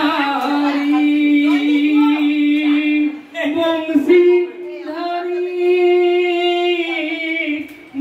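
A solo voice singing into a handheld microphone, holding long drawn-out notes, with short breaks about three and four seconds in.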